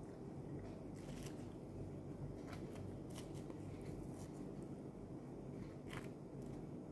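White Arabic flatbread being torn apart by hand: a scattering of short, crisp tearing crackles over a low steady hum.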